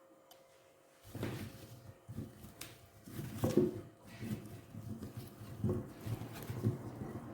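Kitchen handling sounds: irregular soft knocks, clicks and rustles in and around a bowl of seasoned potatoes, carrots and onions, starting about a second in.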